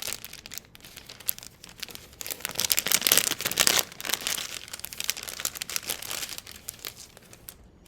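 Plastic packaging crinkling and rustling as it is handled and opened, loudest about three seconds in, then dying down.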